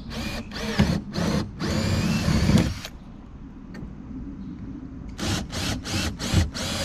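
Power drill boring holes through an aluminum mounting track into the boat's aluminum gunwale, run in bursts on the trigger. There are several bursts in the first three seconds, a pause, then a run of short, quick bursts from about five seconds in.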